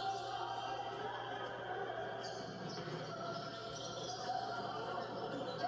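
Handball being dribbled and bounced on an indoor court during play, with faint shouts and the room's echo, heard through a television's sound.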